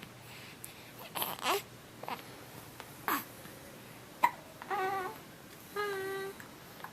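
Baby hiccupping: several short, sharp hiccups about a second apart, then two brief whiny vocal sounds from the baby near the end.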